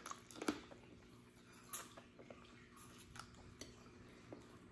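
Faint eating sounds of a person chewing crawfish and working it from the shell: a few short cracks and clicks, the clearest about half a second in and just under two seconds in, with smaller ones later.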